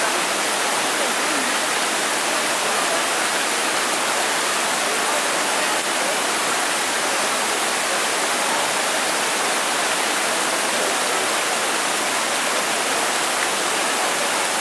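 Shallow mountain stream rushing over boulders in a steady wash of white water.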